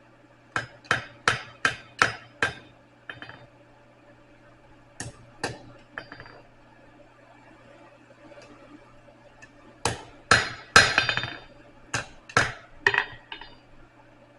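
Hand hammer striking steel on an anvil while forging a hook: a quick run of about six blows, a few scattered strikes, then another flurry near the end. Several blows leave a short metallic ring.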